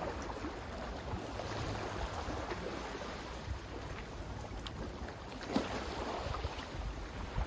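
Sea water washing and surging, swelling about a second and a half in and again past the middle, with a low wind rumble on the microphone.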